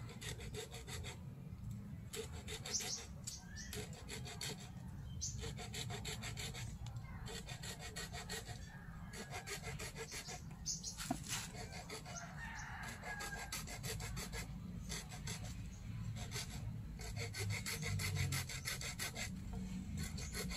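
Small hand saw cutting through a green bamboo stem, steady back-and-forth rasping strokes.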